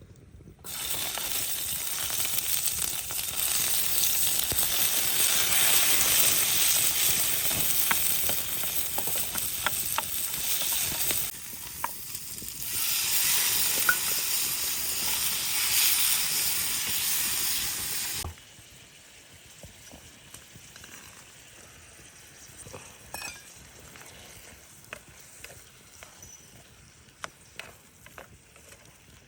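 Food sizzling and frying in a hot pan, a loud steady hiss that starts abruptly about a second in, dips briefly midway, and cuts off suddenly after about 18 seconds, leaving only faint scattered clicks and taps.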